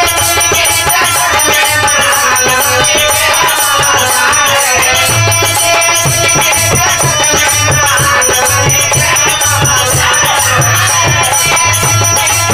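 Instrumental interlude of a Bhojpuri folk song: a harmonium playing the melody over dholak drum strokes, with a steady high rattle keeping the beat.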